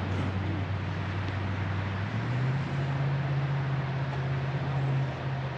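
Steady low hum of an engine, stepping up in pitch about two seconds in, over a steady hiss.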